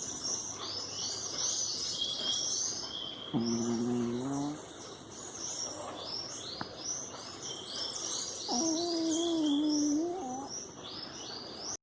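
A 17-year-old domestic cat snoring in its sleep: two drawn-out snores with a wavering pitched tone, the first about three and a half seconds in and a longer one near nine seconds. Birds chirp steadily in the background.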